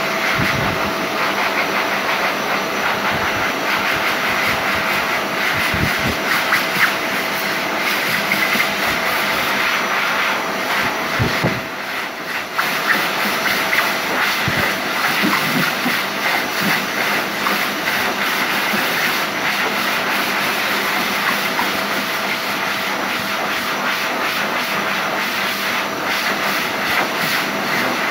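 phs Airstream Vitesse hand dryer running steadily: a loud rush of air with a steady motor whine, as hands are held and moved in its airflow.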